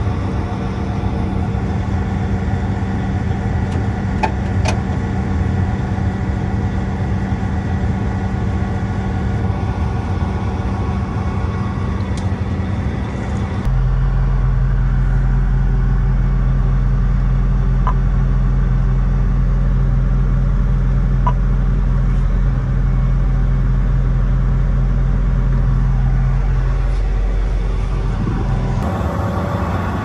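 John Deere CP690 cotton picker running: a steady diesel drone with machine whir and a few faint clicks. About 14 seconds in it shifts abruptly to a deeper, stronger low hum, heard from inside the cab.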